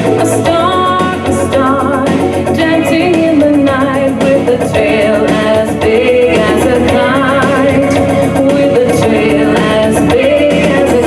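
Song playing: a sung melody over a full instrumental backing.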